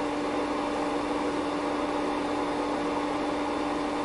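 Steady background hum: one constant mid-low tone over an even hiss, like a cooling fan or ventilation running, with no clicks or changes.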